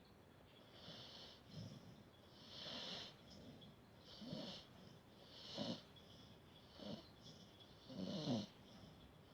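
A dog snoring faintly in its sleep, one raspy breath about every second and a half with a short low snore on each. The last one, near the end, is the loudest.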